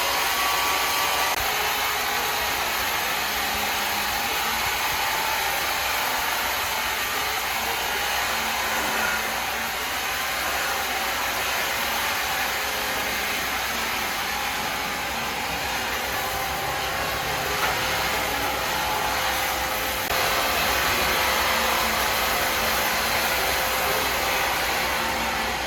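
Sawmill machinery running, a steady whirring noise, a little louder from about twenty seconds in.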